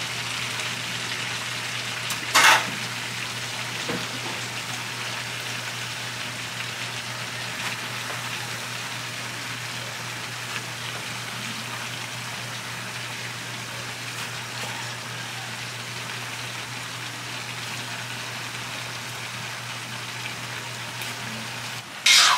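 Stir-fry of chicken, carrots and soy sauce sizzling steadily in a large wok over a gas burner, with rice noodles (bihon) just added on top, under a steady low hum. There is one sharp clank about two seconds in, and metal utensils clatter against the pans near the end.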